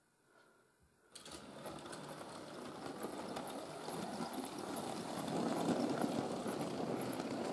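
Model railway locomotive and its goods wagons running past close by: a steady motor hum with a dense clatter of wheels on the track. It starts suddenly about a second in and grows louder as the train comes nearer, loudest near the end.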